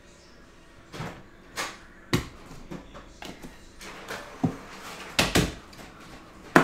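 Irregular knocks and thumps of objects being handled and set down on a desk, about ten in all, the loudest at the very end.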